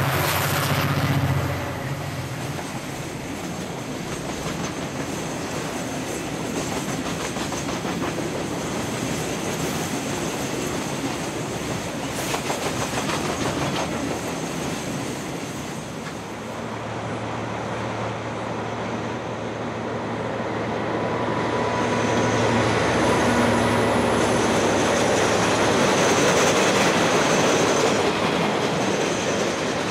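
Diesel locomotives pass, their engine hum dying away in the first couple of seconds, and then a long train of tank wagons rolls steadily by with its wheels clicking on the rails. Near the end a container freight train crossing a steel girder bridge is heard, louder.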